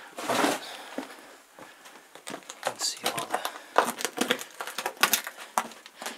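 Irregular crunching and scraping of footsteps on the loose rock rubble of a lava tube floor, busiest in the second half, after a short rushing noise at the start.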